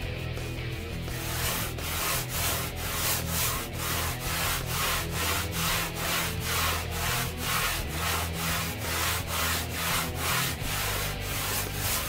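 Sandpaper rubbed back and forth by hand over a skimboard being shaped, starting about a second in and settling into an even rhythm of two to three scratchy strokes a second.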